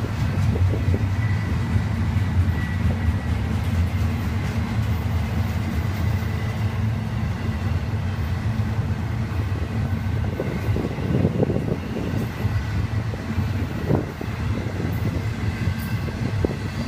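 Double-stack intermodal well cars rolling past on the rails: a steady low rumble of steel wheels on track, with a few sharper clanks and knocks about ten to fourteen seconds in.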